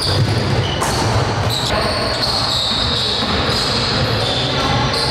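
Basketball game on a hardwood court in a large gym: the ball bouncing, with sneakers squeaking in several high-pitched squeals.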